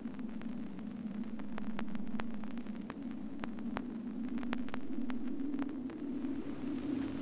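A low, steady droning hum with sparse, irregular crackling clicks over it.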